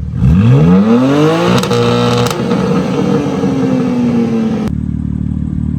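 BMW M3/M4 twin-turbo straight-six blipped once through a single non-resonated mid-pipe, with the exhaust valves open: the pitch climbs steeply for about a second and a half, holds briefly, then falls away and drops back to a steady idle.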